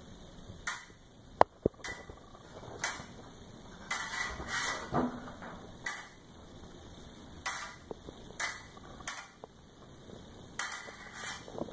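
Thin steel fencing-sword blades clashing and scraping in a staged sword fight: about a dozen irregular contacts, some sharp clicks and some longer rasping slides of blade on blade.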